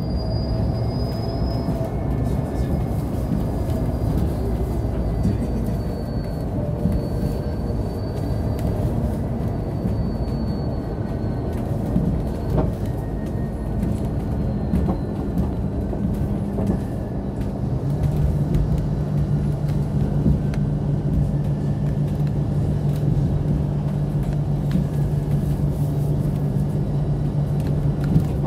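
Cabin noise of a KAMAZ-6282 electric bus under way: a steady rumble of tyres and body, with a faint whine from the electric drive that drifts down in pitch over the first several seconds. A steady low hum sets in about two-thirds of the way through.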